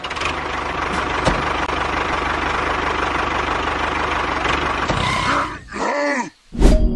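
A motor running steadily with a low hum. About five and a half seconds in, a sweeping sound falls and rises in pitch, drops briefly almost silent, then comes back loud at the end.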